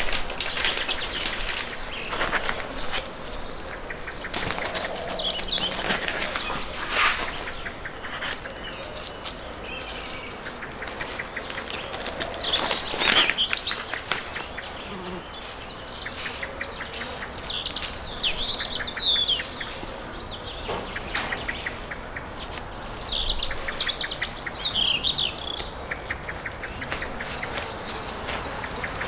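Small birds chirping and warbling on and off, with scattered clicks and knocks from handling, the sharpest about thirteen seconds in.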